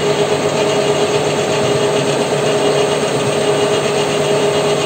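WM210V bench lathe running steadily under power, its motor and gearing giving an even hum with a higher whine over it, while the cutter is worked along the stationary shaft to cut splines.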